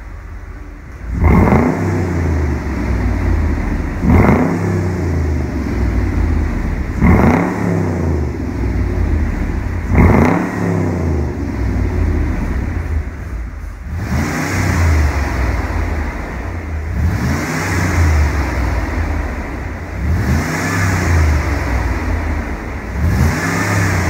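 Mercedes-Benz G500 V8 through an Fi aftermarket valvetronic exhaust, idling briefly and then blipped eight times, about every three seconds, each rev rising and falling quickly. The last four blips, with the exhaust valve open, sound brighter and raspier.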